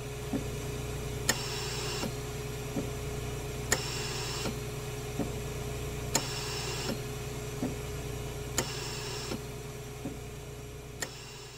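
Steady low mechanical hum with a regular click about every second and a quarter, the louder clicks coming every two and a half seconds; it fades out near the end.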